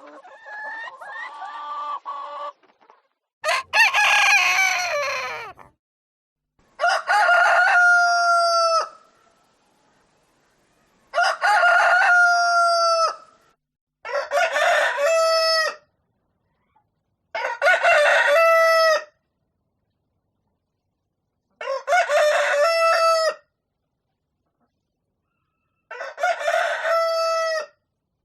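Domestic chickens: clucking in the first couple of seconds and a noisier call, then a rooster crowing six times, each crow about two seconds long with a few seconds of silence between them.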